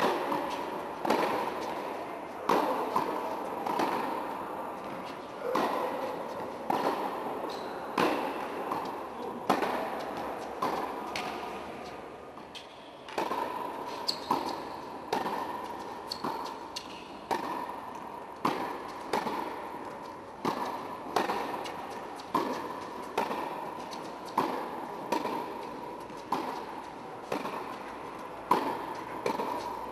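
Tennis ball struck by rackets and bouncing on a hard court in a rally, with sharp pops coming about once a second and echoing in an indoor hall. The pops stop briefly a little before halfway through, then the rally starts again and keeps the same pace.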